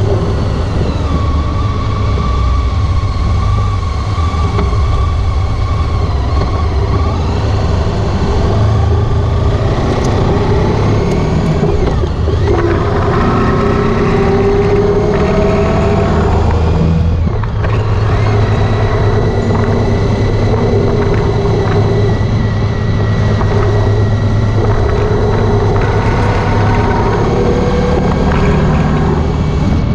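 Honda ST1300 Pan-European's V4 engine running on the move, with wind and road noise over it. The engine pitch climbs for a few seconds partway through and dips briefly just past the middle.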